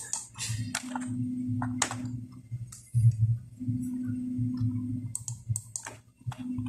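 Computer keyboard typing: irregular, quick keystrokes as text is entered, with a few sharper clicks.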